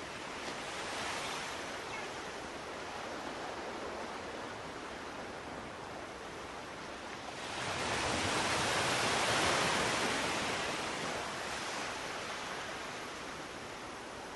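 Rushing noise like ocean surf, with a small swell about a second in and a larger wave swelling up about halfway through, then slowly fading.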